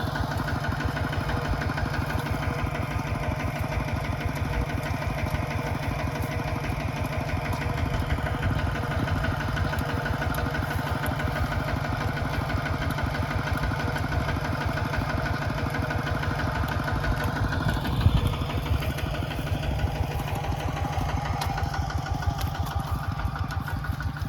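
Mini tractor engine running steadily under load with a fast, even firing beat. About three-quarters of the way through there is a brief clunk, and the engine note shifts after it.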